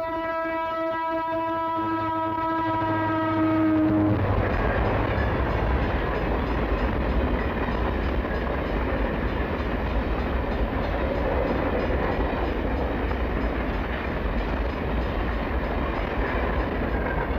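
A train horn sounds one long steady note that dips slightly in pitch as it ends, about four seconds in. It gives way to the steady rushing and rumbling of the train's cars going past.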